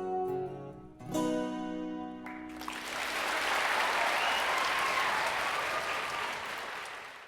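Closing acoustic guitar chords ringing out, with a last strum about a second in, then an audience applauding from about two and a half seconds on, fading near the end.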